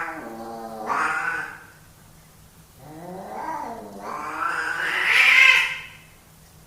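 Male domestic cats caterwauling in a standoff: a series of long, drawn-out yowls that waver in pitch, the last one rising and the loudest before it breaks off.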